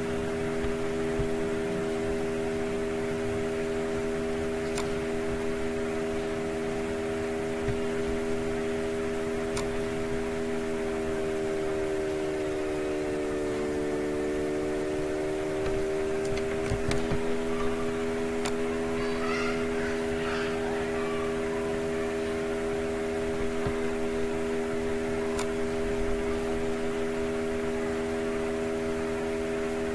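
Steady mechanical hum made of several held tones, dipping slightly in pitch for a few seconds midway before settling back. A few faint clicks are scattered through it.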